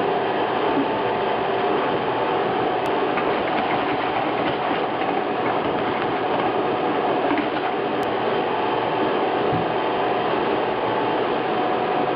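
Vacuum cleaner running steadily, a constant motor whine over a loud rush of air.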